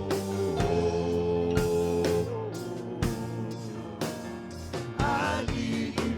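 Live worship band playing an instrumental passage: held keyboard chords with a steady drum beat about once a second.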